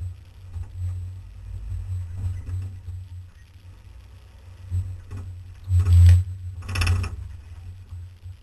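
Off-road vehicle crawling over a rocky trail: a low, uneven rumble of the vehicle and its body shaking on the mount, with two loud half-second rushes of rattling noise about six and seven seconds in as it jolts over the rocks.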